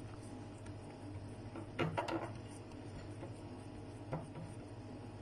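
Quiet room with a steady low hum, and faint handling sounds from a hand pressing mashed potato into a glass dish: a short cluster of soft sound about two seconds in and a light click a little after four seconds.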